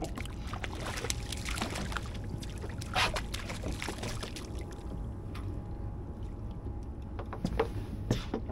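A hooked sea robin splashing at the water's surface as it is reeled up beside the boat, in short irregular splashes with a sharper one about three seconds in. Near the end it is swung out of the water with another splash.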